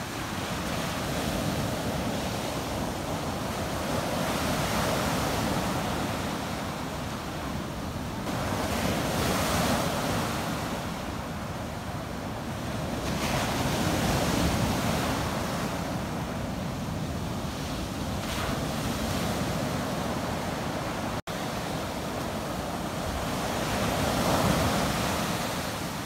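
Surf breaking and washing up a sandy beach, a steady rush of water that swells and ebbs with each incoming wave. The sound drops out for an instant about three quarters of the way through.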